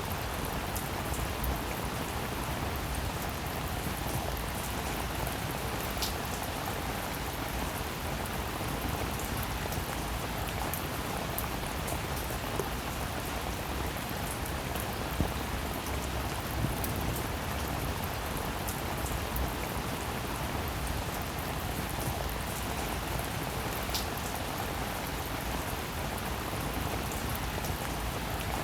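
Steady rain falling, a dense even patter with many individual drops ticking on a hard surface and a couple of sharper drop hits.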